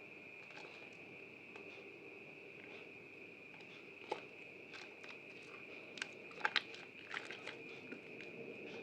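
Soaked bar soap being handled and lathered: sparse soft wet clicks and crackles, with a few sharper ones about four seconds in and again around six and a half seconds, over a faint steady high-pitched whine.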